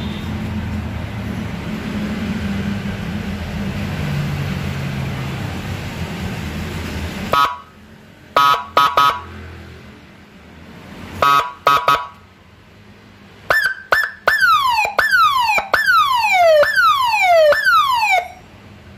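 Electronic police-escort siren module sounding through a horn loudspeaker. After several seconds of steady background noise, it gives two sets of three short honking blasts, then a repeated siren tone that falls in pitch on each cycle, five or six times, before cutting off.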